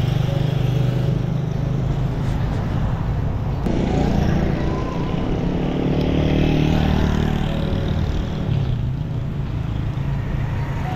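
Motor vehicle engines running close by in road traffic, a steady low hum. A second engine note comes in about four seconds in and fades out by about nine seconds.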